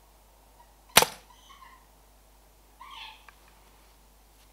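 A single shot from a PCP air rifle about a second in: one sharp crack with a short tail.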